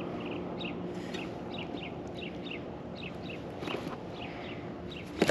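A bird calling in a quick run of short, falling chirps, over a steady background hiss. A single sharp knock comes right at the end.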